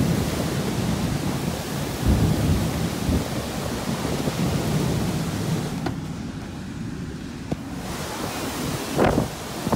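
Severe storm wind buffeting the microphone, with driving rain. It eases for a couple of seconds past the middle, then a strong gust hits near the end.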